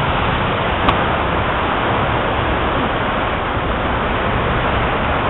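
Heavy rain pouring down in a severe thunderstorm: a loud, steady rush, with a brief click about a second in.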